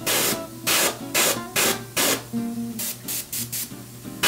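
An airbrush spraying paint in about ten short hissing bursts. The first ones are longer and come about half a second apart; the later ones are shorter and quicker. Soft guitar music plays underneath.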